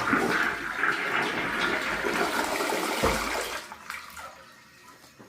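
Toilet flushing: a loud rush of water for about three and a half seconds, then dying away over the next second or so.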